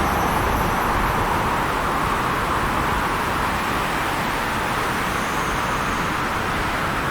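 Steady winter wind blowing as an even, constant rush. A faint, high ringing of Christmas bells comes in briefly about five seconds in.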